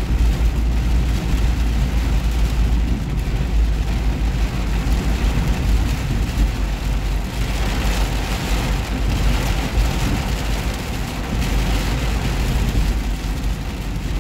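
Heavy rain pelting a car's roof and windshield, heard from inside the moving car over a steady low rumble of the car. The rain's hiss grows louder about halfway through.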